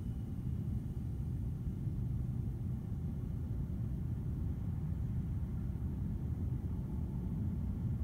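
Steady low rumble of wind buffeting the microphone.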